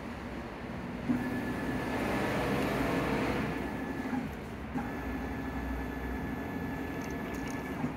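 Closed-loop stepper motor driving the mill's Z axis under CNC control, making two powered moves: a steady whine with a thin high tone that starts with a click about a second in, swells in the middle, stops just after four seconds, then runs again until near the end.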